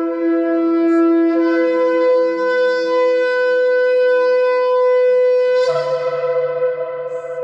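Shofar, a ram's horn, blown in one long held blast. The tone shifts slightly about a second in and turns brighter and rougher about six seconds in, then begins to fade at the end.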